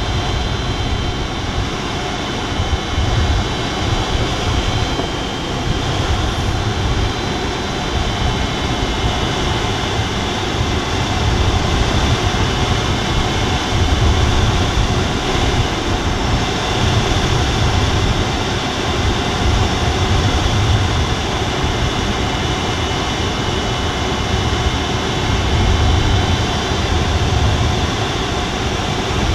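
Steady rush of air over the canopy and airframe inside the cockpit of an Alisport Silent-in motorglider gliding with its engine stowed, with an uneven low rumble under it.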